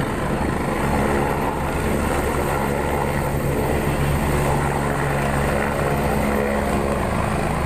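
AgustaWestland AW109 Grand helicopter lifting off, its rotor and turbines running loud and steady as it rises into a low hover, raising dust.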